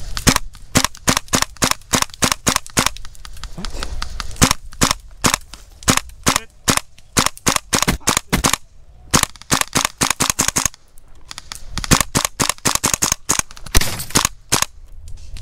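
Airsoft rifles firing sharp single shots in quick succession, about four a second, in long strings broken by short pauses: an exchange of fire.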